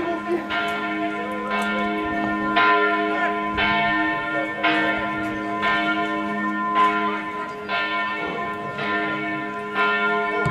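Church bells ringing, a new stroke about once a second over the steady hum of the bells still sounding.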